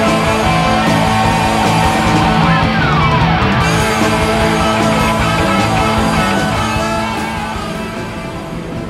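Rock music, fading down over the last two seconds.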